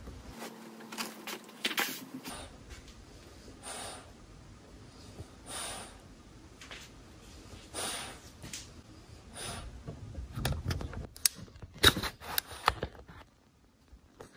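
French bulldogs snorting and breathing noisily: short snorts every second or two, coming closer together and loudest near the end.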